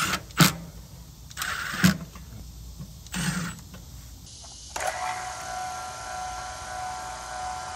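Cordless driver running in a few short bursts with sharp clicks as it drives the screws of a mini-split outdoor unit's wire cover. From about five seconds in, a vacuum pump runs with a steady hum, evacuating the refrigerant lines to draw out moisture and impurities.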